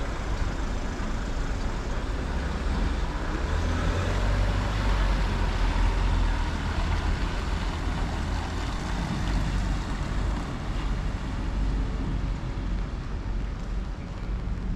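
Road traffic noise: a steady low rumble with no clear individual events, swelling somewhat between about four and seven seconds in.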